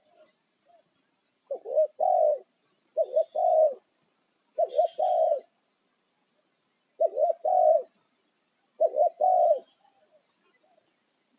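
Spotted dove (tekukur) cooing, calling to others of its kind: five phrases in a row, each a couple of quick notes running into a longer coo, a second or two apart.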